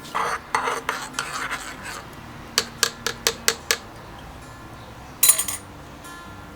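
Cutlery on a plate: scraping for about two seconds, then six quick taps, then one louder clink about five seconds in.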